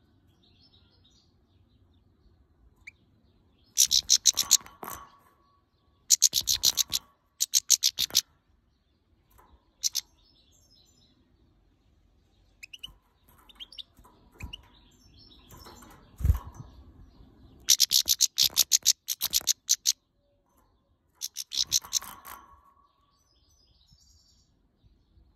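Caged female European goldfinch giving bursts of rapid, sharp high calls in about six runs, agitated at the camera. There is one short low thump about two-thirds of the way through.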